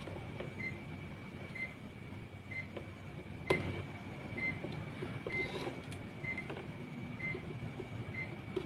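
A short, high electronic beep repeating about once a second over a low rumble, with one sharp click about three and a half seconds in.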